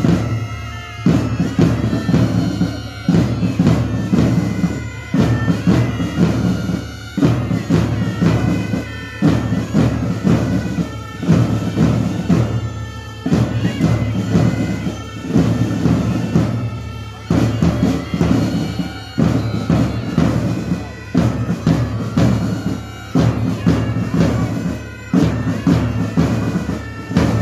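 Pipe band playing a tune: several bagpipes sounding the melody over their drones, with a bass drum keeping a regular beat.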